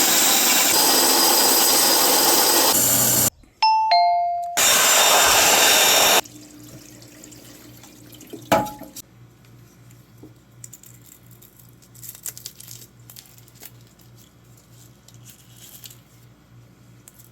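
Loud, steady rushing noise that cuts off suddenly twice. Between the two stretches comes a two-note falling chime like a doorbell. Then a low, steady hum with a single sharp knock.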